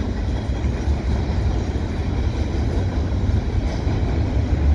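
Freight train of empty centerbeam lumber cars and boxcars rolling past at speed: a steady low rumble of steel wheels on the rails.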